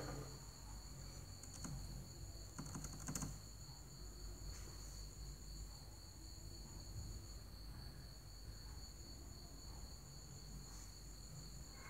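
Faint, steady high-pitched insect trilling, two pitches at once, from crickets. The higher one pauses briefly just before 8 s. A few soft clicks come from hands on the laptop.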